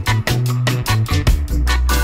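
Background music with a steady beat: regular percussion strikes over a bass line that moves between a few notes.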